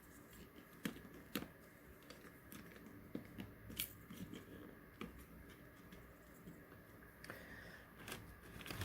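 Faint, scattered clicks and taps of small plastic parts and wiring being handled during hand assembly, the two sharpest about a second and a second and a half in.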